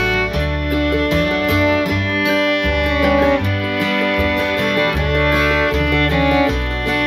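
Instrumental background music in a bluegrass-country style, a fiddle playing over acoustic guitar and a steady bass line.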